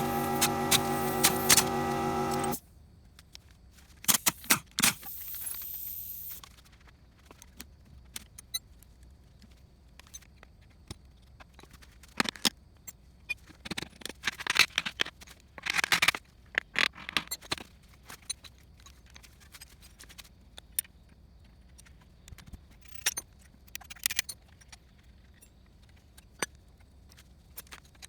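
A steady hum cuts off about two and a half seconds in. Then come scattered metallic clinks, jangles and short scrapes of tools and parts being handled while a kei-truck manual transmission is taken apart.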